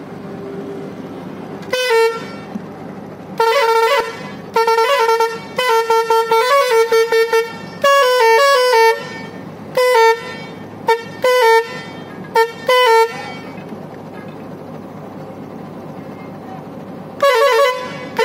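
Musical air-pressure horn on a truck, played from a piano-type push-button controller. It sounds a tune of short notes at several stepped pitches in quick runs. After a pause of a few seconds, more notes start near the end.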